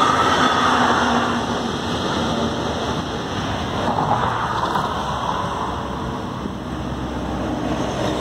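A Brightline passenger train running past over the grade crossing, its rumble easing off in the first couple of seconds as the last car clears, then cars driving across the tracks as a steady road-noise hiss.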